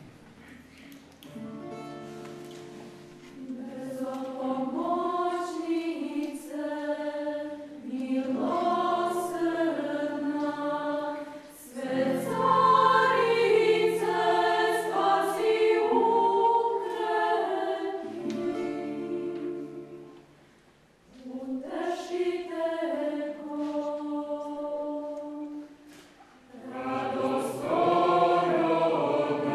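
Mixed choir of women's and men's voices singing an Orthodox church hymn a cappella, in phrases broken by short breaths, with one longer pause about two-thirds of the way through.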